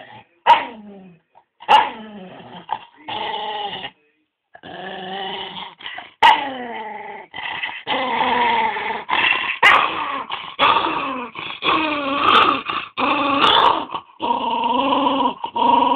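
Small dog growling and 'singing': a string of drawn-out vocalisations that slide up and down in pitch. Over the first few seconds they come in short bursts, a couple of them falling sharply, and from about five seconds in they run almost without a break.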